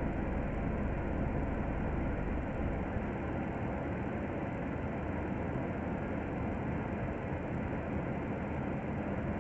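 Double-decker bus engine idling, heard from inside on the upper deck with a steady hiss of cabin noise. The deep low rumble drops away about two and a half seconds in.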